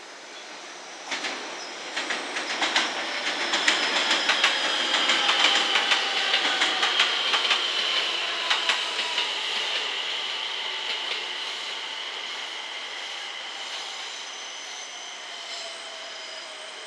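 Train wheels rolling slowly through the yard: an irregular clacking over rail joints and points, with a high wheel-flange squeal that slowly falls in pitch, loudest a few seconds in and fading toward the end.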